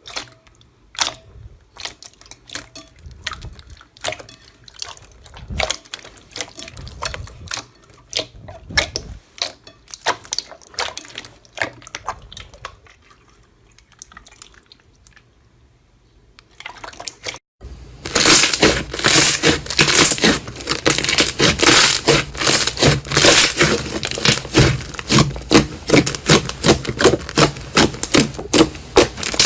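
Slime being pressed and squeezed: irregular wet clicks and squishes, then after a brief break a louder run of dense, rapid crackling and popping.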